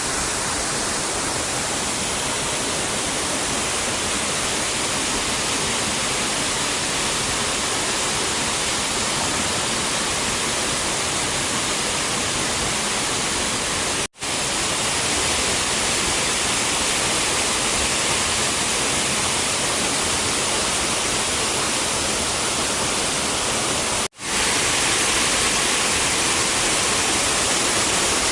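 Waterfall rushing: a steady, loud roar of falling water that drops out for an instant twice, at about 14 and 24 seconds, where the recording is cut.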